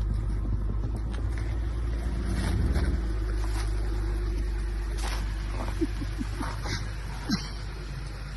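Steady low rumble of a motor vehicle running, with a few faint clicks and short squeaks in the second half.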